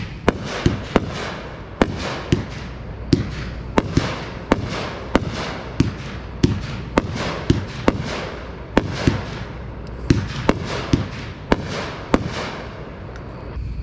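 Red 12-shot 500-gram fireworks cake (Dominator Pro PFX5810-RWBC) firing its shots in sequence: a run of sharp bangs, about one to two a second, each followed by a short hissing tail.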